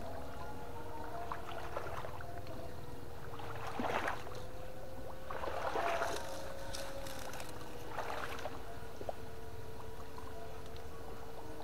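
Water splashing and sloshing in short bursts, three main ones a couple of seconds apart, over a steady, slightly wavering hum and a low rumble.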